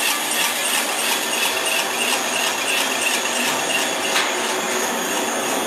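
Single-screw food extruder running, a steady dense mechanical whirr and hiss, with one sharp click about four seconds in.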